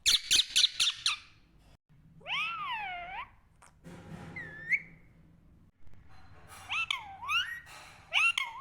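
A pet parrot calling: a quick run of about five loud, harsh squawks, then separate wavering, whistle-like calls that swoop up and down in pitch.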